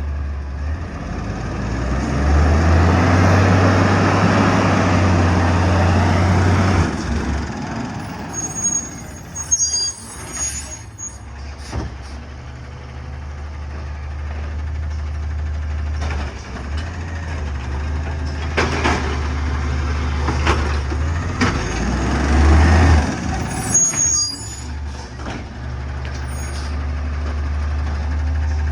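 Heavy city garbage truck's diesel engine running, surging loud for about five seconds from two seconds in, with an air-brake hiss and a high squeal twice, and a few sharp clanks later on.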